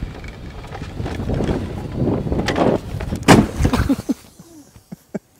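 Driverless golf cart rolling over rough dirt and grass, then a loud crash a little past three seconds in as it hits a tree trunk, with a short rattle after it.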